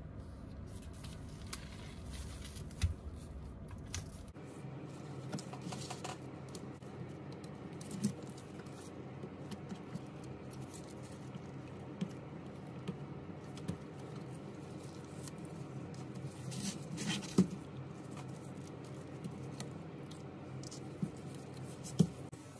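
Small clicks and taps of hands working inside an opened iPhone 11 Pro Max: a plastic opening pick prying at the board connectors and small metal parts handled on the bench, with a sharp click every few seconds.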